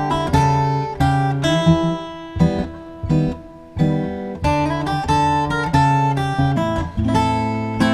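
Acoustic guitar music: strummed chords with a steady, regular rhythm.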